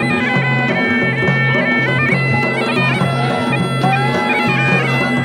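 Bagpipe playing a melody over a steady drone, the chanter stepping between high notes. It is the kind of bagpipe (mashakbeen) played at Uttarakhand weddings.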